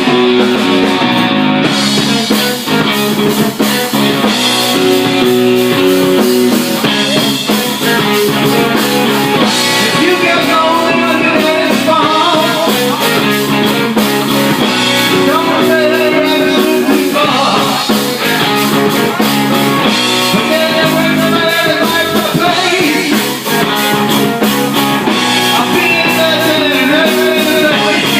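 Rock band playing, with electric guitar over bass and drums and a voice singing.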